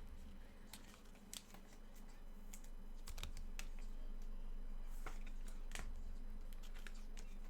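Irregular clicks and taps of typing on a computer keyboard, with a few keystrokes a second and short pauses between them.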